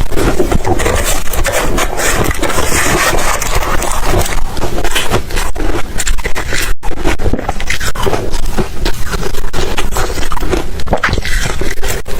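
Ice being crunched and chewed close to the microphone: a loud, continuous crackling crunch of many small cracks, broken by a split-second gap about halfway.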